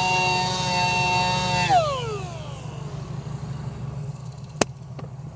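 Power sander with a 320-grit disc running at a steady high whine on an alloy wheel, then switched off a little under two seconds in, its pitch falling as it spins down. A low steady hum goes on underneath, and a sharp click comes near the end.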